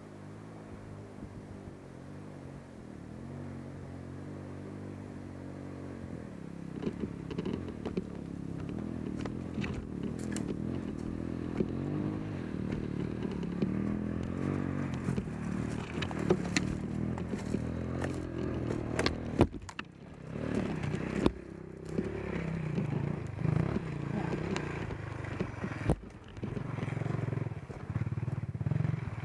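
GIO X35 trail motorcycle engine running on a single-track ride, its pitch rising and falling with the throttle, getting louder about six seconds in. Sharp clattering knocks come through over the second half.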